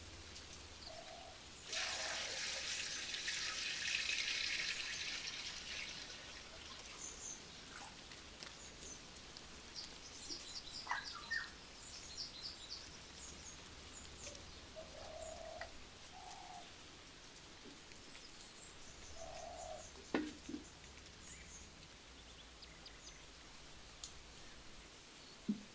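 Small birds chirping in short high notes in the background. A loud rushing hiss lasts about four seconds near the start, and a couple of sharp knocks come later.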